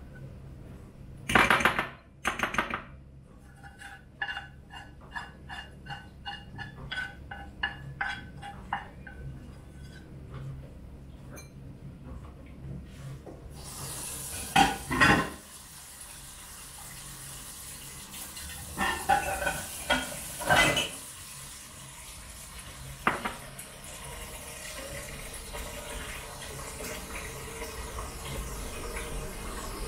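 Porridge scraped out of a metal pot with a wooden spatula: two loud clanks, then a run of regular scrapes that make the pot ring. About fourteen seconds in, a kitchen tap turns on and runs steadily, with a few clanks of dishes in the sink.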